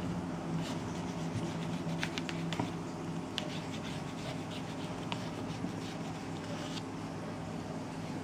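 A metal spatula spreading and scraping buttercream on the side of a cake, with scattered light clicks over a low steady hum that is strongest in the first few seconds.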